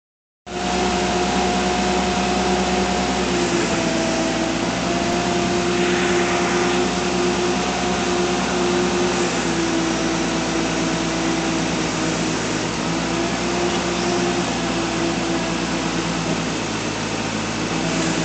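Forklift running steadily: an even mechanical hum with a whine whose pitch shifts slightly up and down.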